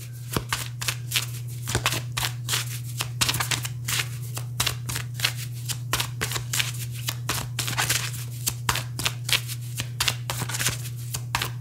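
A deck of oracle cards being shuffled by hand: a quick, irregular run of crisp card flicks and snaps, over a steady low hum.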